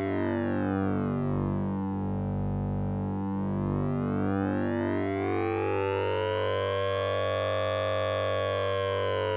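Synthesized 'Sync'n'Ring' drone from the Orange Vocoder plug-in: a steady low hum under a dense comb of buzzy overtones. The overtones sweep slowly down during the first three seconds, then rise back up by about eight seconds in, like a slow siren-like filter sweep.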